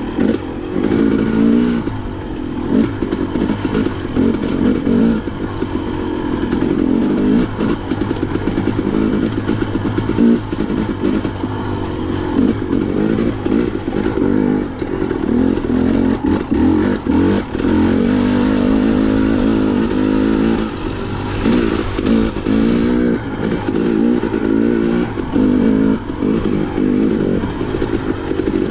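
Off-road motorcycle engine running while riding a rough trail, the throttle rising and falling constantly, with frequent clattering knocks from the bike over the ground.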